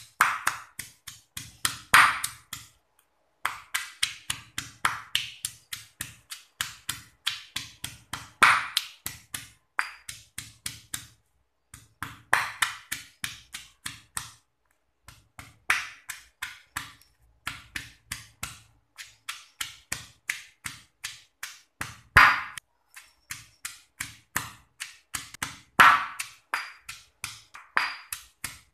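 Stone pestle pounding a spice paste of chilies, shallots, garlic, lemongrass and turmeric in a stone mortar: quick, even knocks, about three to four a second, in runs broken by short pauses.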